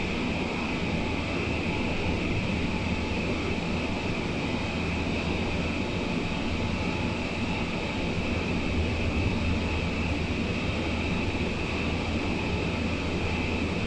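Steady running noise heard inside a car of the BART Oakland Airport Connector, a cable-hauled people mover, travelling along its elevated guideway: a low rumble under a steady high whine, unchanging throughout.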